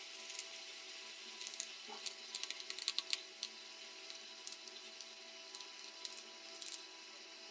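Light, irregular clicks and taps from hands working on a laptop's plastic case and small parts, bunched together about two to three seconds in, over a faint steady hum.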